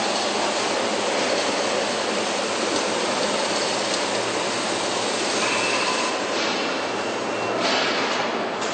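Steady mechanical din of a truck assembly plant's factory floor, with a brief faint high whine a little past halfway.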